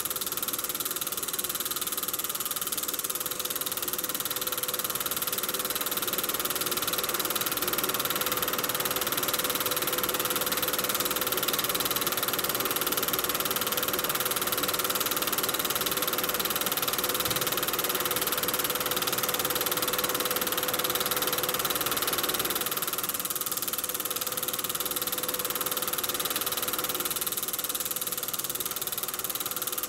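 Cine film projector running steadily: an even mechanical whir with a constant hum, unbroken throughout.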